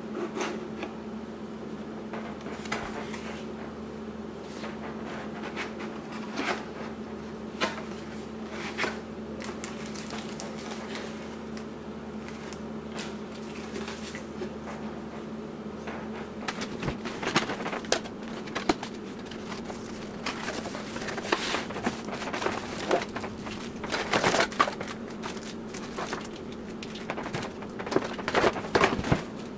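Camera packaging being unboxed by hand: a cardboard box and inner trays opened, and accessories in plastic bags set down on a wooden table, giving scattered taps, knocks and rustles over a steady low hum. The handling grows busier and louder in the second half.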